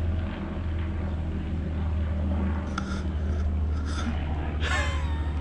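Spitfire's piston aero engine giving a low, steady drone as the plane flies past. A short breathy vocal sound comes near the end.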